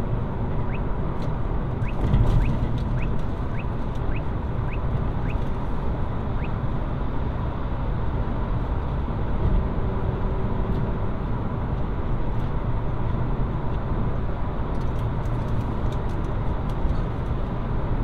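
Steady road and tyre noise of a car driving on a wet freeway, heard from inside the cabin. During the first six seconds it carries a run of short rising chirps, about two a second.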